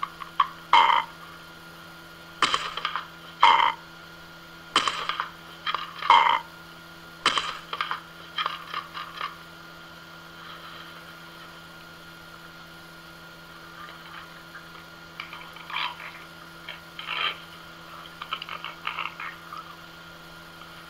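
A series of short, croaky animal calls, about one a second for the first nine seconds, then a pause and fainter, more scattered calls, over a steady electrical hum.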